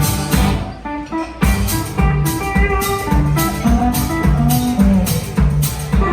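Live country band playing an instrumental break between sung verses: guitar over bass and drum kit with a steady beat. The beat pauses briefly about a second in.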